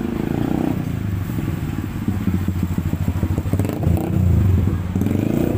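A motorcycle engine running close by, its pitch rising and falling as the revs change.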